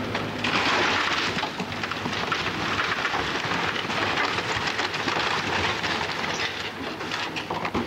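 Dense crackling and crunching of splintering wood and debris as a fire-damaged wooden cabin is torn down, over the steady hum of a machine's engine. The crackling swells about half a second in and eases near the end.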